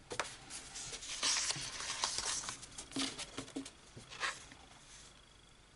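Sheets of 200 gsm single-sided woodgrain-printed scrapbook paper rustling and sliding against one another as they are leafed through and laid down, with small taps and flicks. The handling dies away a little past the halfway mark.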